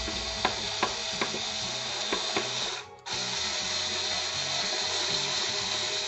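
Cordless drill-driver driving screws into a speaker cabinet. It runs in two spells of about three seconds each, with a brief stop about three seconds in, and a few sharp clicks come during the first spell.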